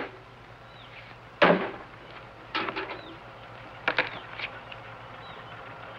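A shovel blade driven into dirt in several sharp, irregular strikes, the loudest about a second and a half in. Faint bird chirps come now and then in the background.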